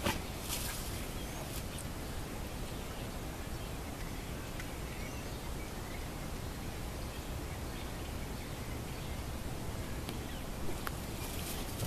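Steady outdoor background noise with faint, scattered bird chirps, and a few brief clicks just after the start and again near the end.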